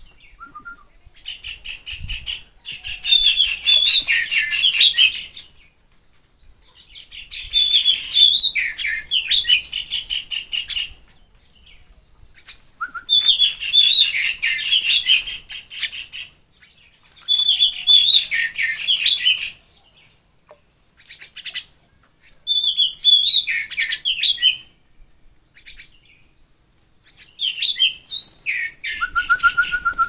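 Mynas calling in six bouts of rapid chattering chirps, each lasting two to four seconds, with short quiet gaps between them.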